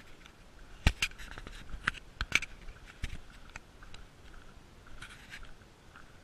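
Footsteps crunching and scuffing on a dirt trail, with a cluster of sharp, irregular knocks between about one and two and a half seconds in.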